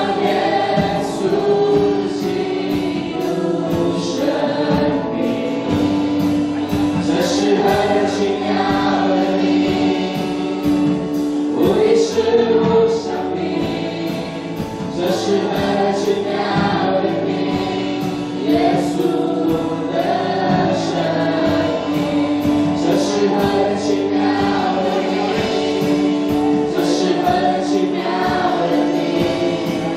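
Live Christian worship music: a man and two women singing a praise song together into microphones, backed by acoustic guitar.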